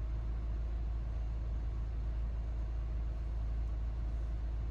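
Steady low rumble of a Peugeot 308 idling, with no music or sound coming from its speakers: the audio is still cut out after a factory reset.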